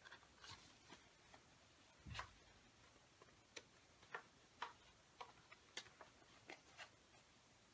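Faint, irregular clicks and light taps of a CD album's case and packaging being handled, with a slightly heavier knock about two seconds in.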